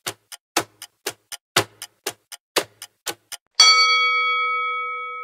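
Quiz countdown-timer sound effect: a clock ticking about four times a second, louder and softer ticks in turn. About three and a half seconds in, a bell-like chime rings out and slowly fades as the answer is revealed.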